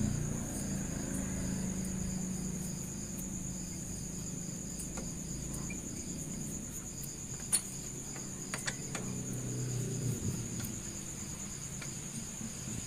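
T-handle socket wrench working the clutch pressure-plate bolts of a Yamaha Byson: a few light metal clicks come about halfway through. Under them runs a steady high-pitched trill with a faint regular pulse.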